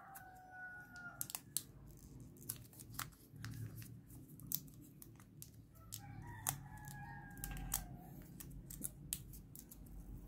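Fingernails clicking and scratching at the clear plastic protective film on a smartwatch case, with light crinkling of the film as it is worked loose. A rooster crows faintly twice in the background, near the start and again about six seconds in.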